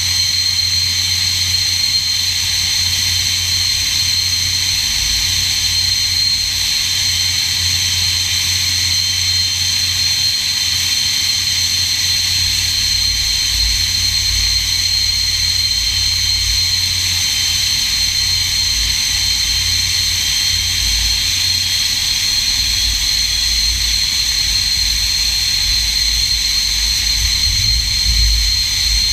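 SEPECAT Jaguar's Adour turbofan engine running steadily in a ground run: a high turbine whine over a low rumble, with the rumble growing stronger in the second half.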